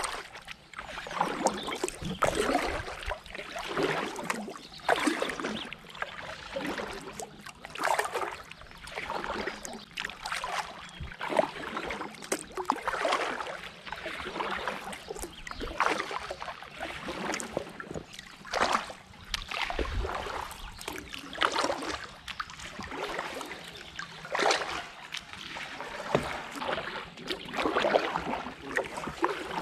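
Kayak paddle strokes: a double-bladed paddle dipping and pulling through calm canal water on alternate sides, in an even rhythm of about one stroke a second.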